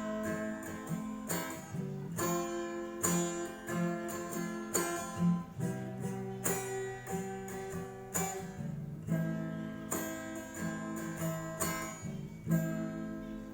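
Acoustic guitar strummed in chords with no singing, the closing instrumental bars of a song, getting quieter toward the end.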